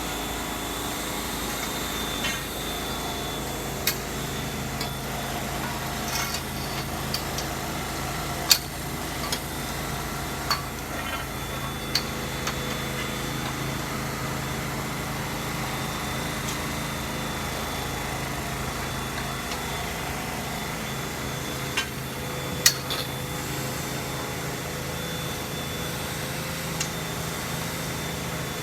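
A steady motor hum runs throughout, with a few sharp clacks scattered through it as metal frame-tent poles are pushed into their fittings.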